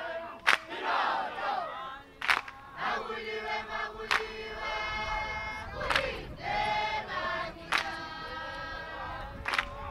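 A group singing and chanting ingoma dance songs, voices whooping and holding long notes together. A sharp, loud beat sounds about every two seconds.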